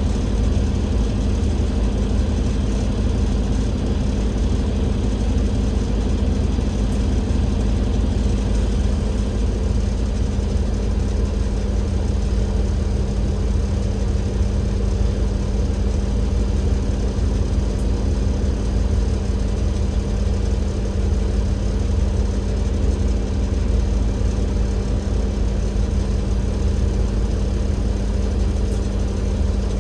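Alexander Dennis Enviro500 double-decker bus with a Cummins L9E diesel engine running steadily, a constant low hum over a rumble. About nine seconds in, a slightly higher tone and a hiss drop away.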